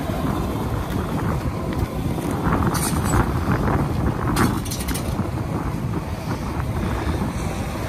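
Wind buffeting the microphone, a rough, fluctuating low rumble, with two short hisses about three and four and a half seconds in.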